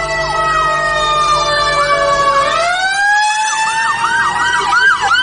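Aftermarket air train horn blowing one long multi-note chord; its pitch sags slowly, then swings back up about two and a half seconds in. An electronic siren yelps rapidly beneath it, about three sweeps a second, from about three seconds in.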